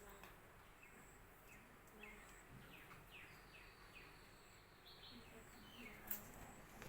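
Faint bird chirps: a run of short, quick downward-sliding calls, with a thin held whistle behind them and a single sharp click near the end.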